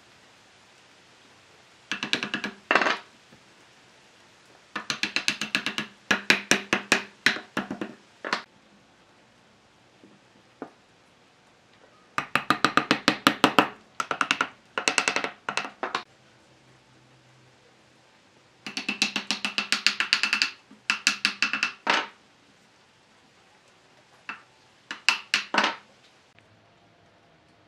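A hand-held wooden block striking a wooden frame, knocking a curved brace and its joint home. The knocks come quickly, several a second, in five bursts of one to three seconds each, with quiet between them.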